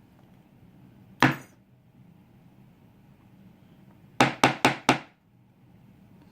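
One sharp knock, then a couple of seconds later four quick knocks in a row, like the DOM ix dimple lock's metal housing being rapped against a hard surface to shake loose a spring stuck inside after gutting.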